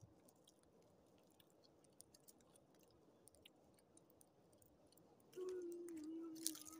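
Faint crackling of a small twig fire burning under a kettle, with scattered light ticks. A steady low hum comes in about five seconds in and holds to the end, and a single sharp click sounds near the end.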